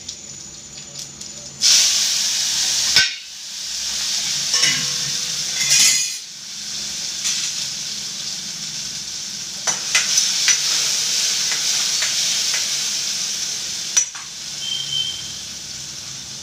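Chopped tomato hitting hot oil with green chillies and cumin in a metal pan: a loud sizzle starts suddenly about two seconds in and goes on as steady frying, with a few metal clinks in the pan.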